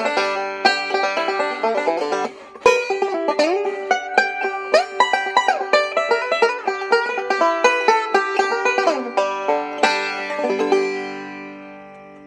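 Background music of quick plucked-string notes, fading out near the end.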